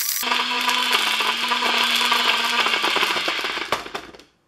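NutriBullet blender running with a dry baseball in the cup, a steady motor hum under rapid rattling as the blades tear at the ball's leather cover and seams. It cuts out for an instant at the start, runs again, then winds down and stops near the end.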